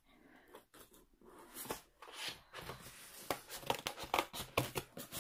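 Cardboard shipping box being handled and pulled open. After about two seconds of quiet, irregular crackles and snaps of card and paper come faster and louder toward the end.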